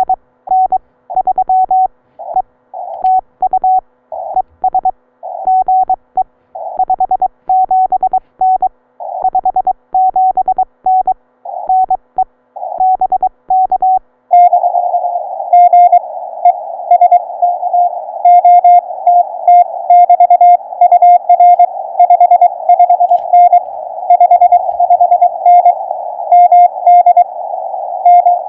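Morse code (CW) tones at one steady pitch from a Ten-Tec Eagle ham radio transceiver, heard through its narrow CW filter. For about the first half the dots and dashes are separated by silence. From about halfway a steady band hiss runs underneath the keyed tones.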